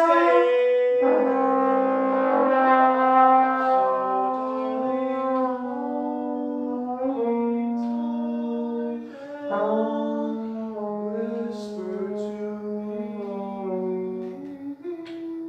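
A saxophone and a second wind instrument playing an unaccompanied jazz duet. A lower line holds long notes under a moving upper line, with a brief break about nine seconds in.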